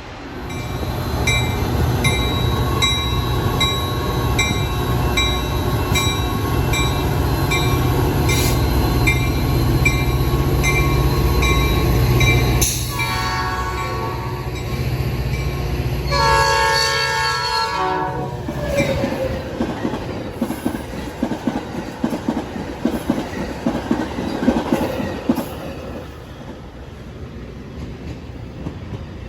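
Metra commuter train passing close by: a diesel locomotive running loud under a steady dinging at about two a second, then two horn blasts a few seconds apart, the second one longer and louder. After the horn the engine rumble drops away and the cars clatter past over the rail joints.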